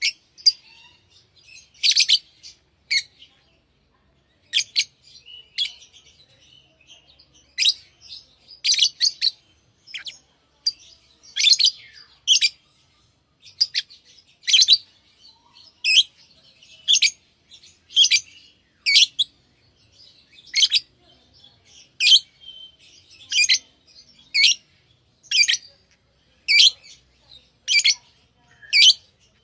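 Lovebirds chirping with short, sharp, high-pitched calls: scattered at first, then coming steadily at about one a second through the second half.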